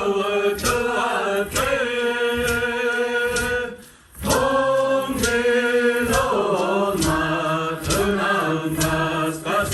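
A group of voices singing held chords, with a sharp beat struck about once a second. The singing breaks off briefly about four seconds in, then comes back.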